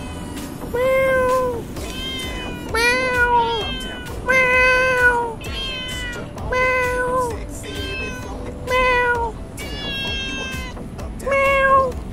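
Domestic cat meowing over and over, about eight loud meows, each under a second long and about a second apart.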